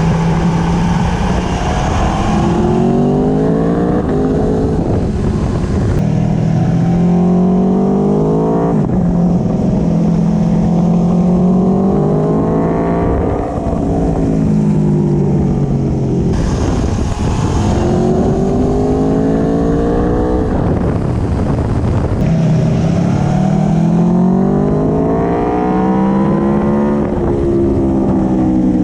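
2017 Aprilia Tuono V4 Factory's V4 engine through an Akrapovic slip-on exhaust, heard close from the footpeg while riding. The revs climb and drop repeatedly, with a raspy edge at the higher revs.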